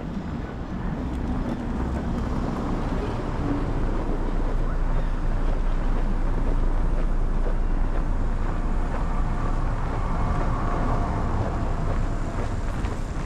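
Street traffic passing on a snowy city street, heard under steady wind buffeting the microphone. The noise swells a few seconds in and eases toward the end.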